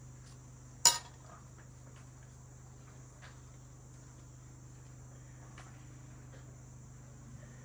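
Insects chirring steadily in a continuous high-pitched drone. A single sharp, ringing clink sounds about a second in, the loudest thing here, followed by a few faint ticks.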